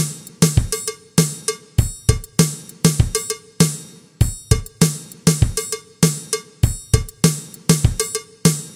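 Background music: a steady electronic drum beat with a deep kick, about three beats every two seconds.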